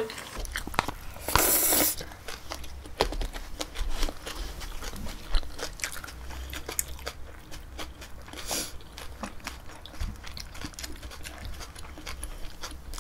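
Close-up mouth sounds of two people biting and chewing sliced pork belly and green onion salad: wet, crunchy chewing with many small clicks. There are two brief rushing noises, about a second and a half in and again past the middle.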